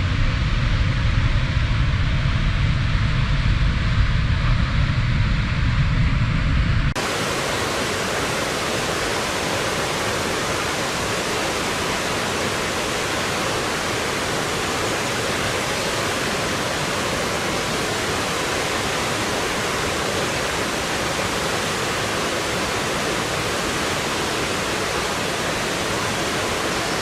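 Waterfall: steady rushing of falling water. About seven seconds in the sound changes abruptly, losing its deep rumble and turning to a brighter, even hiss.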